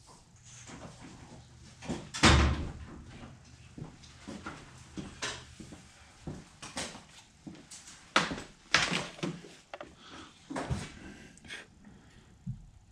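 Someone moving about a shop, rummaging and handling tools and gear: scattered knocks, clunks and rattles, the loudest a bang about two seconds in.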